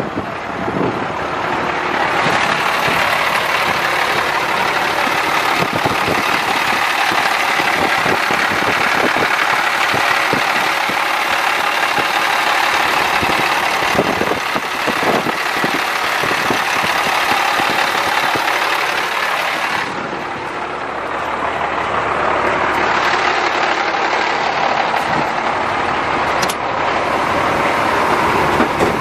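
International DT466 inline-six diesel engine idling steadily, heard close up. It dips briefly in loudness about two-thirds of the way through.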